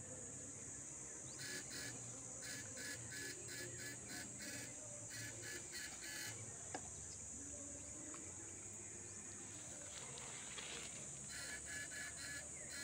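Steady high-pitched insect drone from the riverside vegetation, with runs of rapid pulsed calls at about four a second from about a second in to six seconds and again near the end, over a faint low hum.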